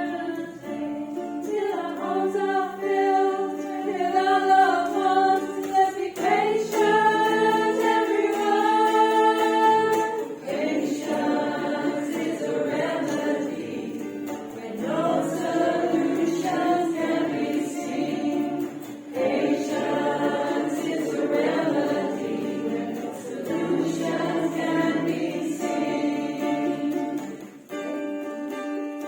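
A small group of women singing a song together in long, held notes, with a plucked-string accompaniment in the background.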